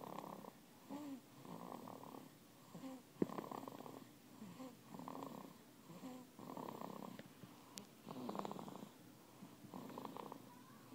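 A baby snoring softly, a rough rattling breath about once a second with short gaps between, and a couple of small clicks.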